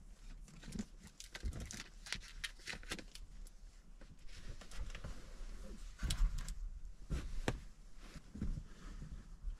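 Cloth rustling and scattered light clicks and taps as a cord is wound around a folded fabric pad and bedding is handled and smoothed. The clicks are thickest a couple of seconds in and again past the middle.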